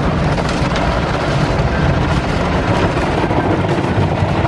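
Automatic car wash working over the car, heard from inside the cabin: a loud, steady rush of spraying water and wash machinery with a low rumble underneath.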